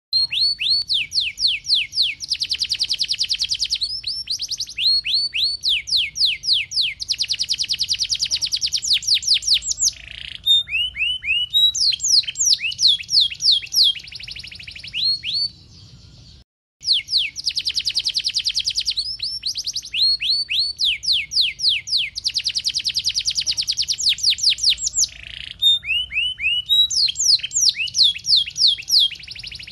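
Domestic canary singing loudly in long rolling trills: rapid runs of quick downward-sweeping notes, phrase after phrase. A brief break comes about halfway through, after which the same sequence of phrases plays again.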